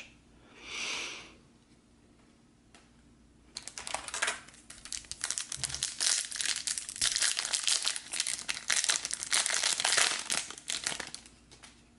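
Foil trading-card pack wrapper being torn open and crinkled by hand: a dense, crackly rustle that starts about three and a half seconds in and stops about a second before the end.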